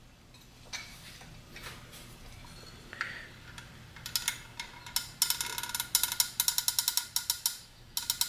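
Caulking gun being worked to push silicone caulk through a drinking-straw extension. About four seconds in it starts making rapid ratcheting clicks, in a few bursts with short pauses between.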